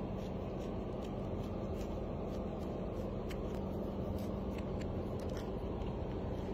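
Steady low background rumble with a faint hum, and a few light clicks.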